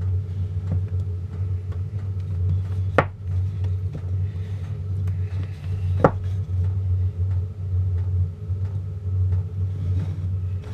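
A steady low hum runs throughout. Two sharp knocks about three seconds apart come from handling the wooden frame parts and wax foundation sheet.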